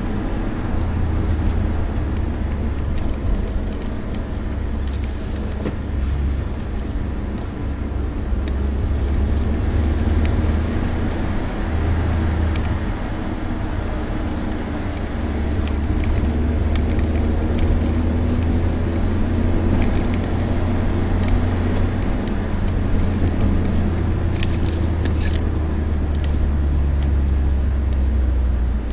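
Car driving, heard from inside the cabin: a steady low rumble of engine and tyres on the road, with a few brief clicks near the end.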